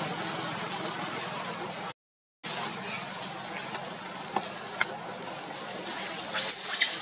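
Steady outdoor hiss that cuts out completely for half a second about two seconds in, with two sharp clicks a little later; near the end, a few short high-pitched macaque squeals.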